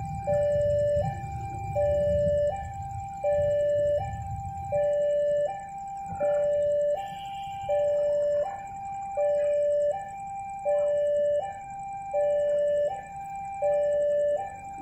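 Level-crossing warning alarm sounding an electronic two-tone signal, a higher note then a lower one, repeating about every one and a half seconds: the crossing is warning road traffic of an approaching train. A low engine rumble runs under it for the first four or five seconds.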